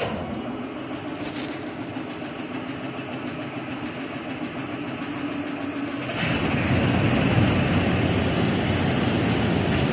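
BM Volvo combine harvester running, a steady engine and mechanical clatter that grows louder about six seconds in.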